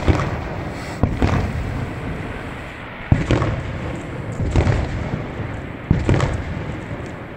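Aerial firework shells exploding during a fireworks display: five booms, irregularly spaced one to two seconds apart, each followed by a lingering echo.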